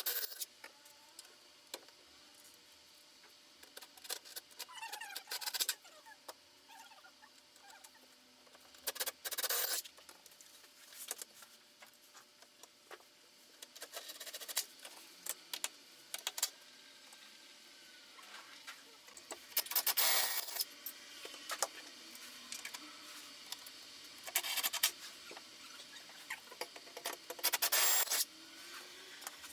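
Scattered short rubbing and scraping noises, each about half a second to a second long and about six in all, with faint light clicks between them.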